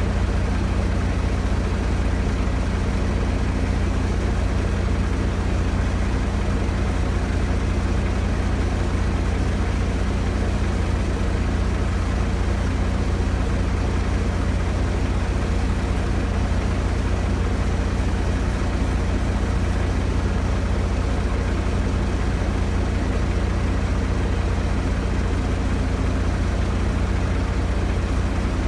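Diesel engine idling steadily, an even low rumble with a constant hum that does not change in speed.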